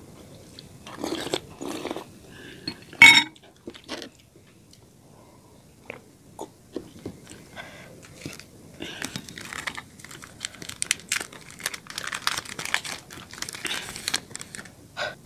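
Eating sounds of spicy noodle soup taken from a spoon, with a single sharp knock about three seconds in. From about the middle on, the plastic wrapper of a Cadbury Dairy Milk bar crinkles and tears as it is opened.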